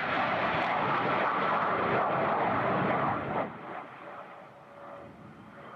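Military jet aircraft taking off and passing, a loud, even engine noise that fades away about three and a half seconds in.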